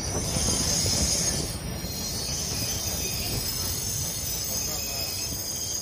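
Tram running along its rails: a steady low rumble with a high metallic squeal on top. The squeal is loudest for the first second and a half, then carries on more faintly.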